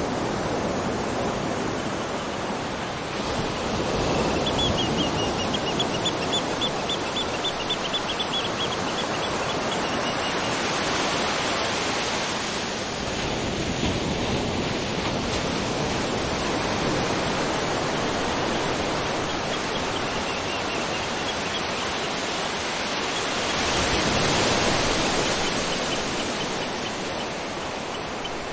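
Waterfall rushing steadily, swelling a little at times. Over it a bird repeats short high notes in a quick even series, from about four seconds in for several seconds, and more faintly twice later.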